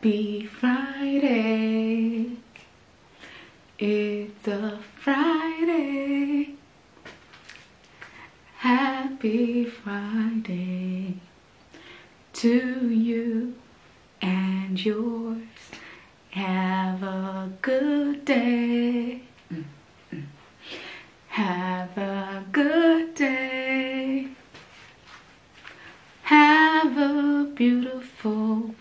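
A woman singing unaccompanied, in short phrases of held notes with brief pauses between them.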